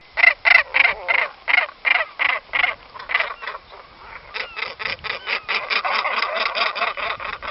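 A bird calling in a series of short repeated notes, about three a second at first, then a quicker run of about five a second from about halfway through, with faint whistled notes of other birds in between.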